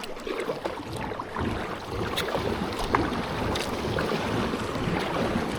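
Small boat running flat out across a pond: water rushing along the hull and wind on the microphone, getting louder about a second and a half in.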